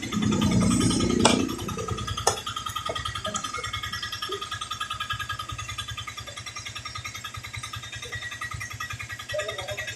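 A small engine idling with a steady rapid beat. Two sharp knocks come about a second apart near the start.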